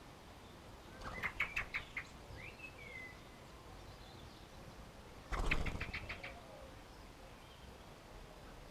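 Small garden birds at a bird table: two short bursts of rapid wingbeats close to the microphone, about a second in and again past the middle, with a few faint chirps in between.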